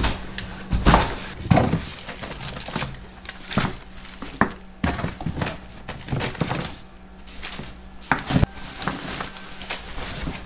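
Cardboard boxes of frozen meat being lifted and shifted about inside a chest freezer: irregular thumps, knocks and cardboard scrapes.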